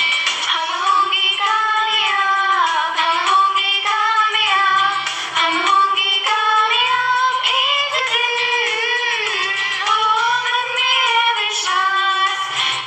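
A woman singing a prayer song solo, in a slow melody with long held notes that glide smoothly from one pitch to the next.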